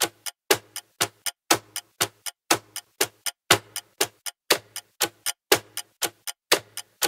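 Ticking clock countdown-timer sound effect: sharp, even ticks about four a second, with a deeper tick once a second.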